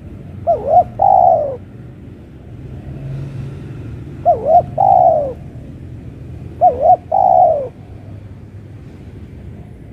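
Spotted dove cooing three times, close by. Each call is two short up-and-down notes followed by a longer falling note.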